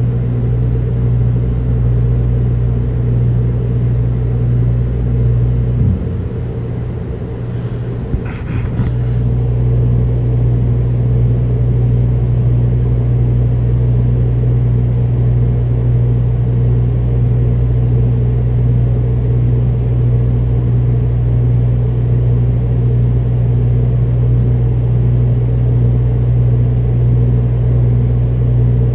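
Steady, loud, low-pitched mechanical hum, which the recordist takes for machine noise coming from a neighbouring apartment. It dips and shifts briefly about six to nine seconds in, then settles back to the same drone.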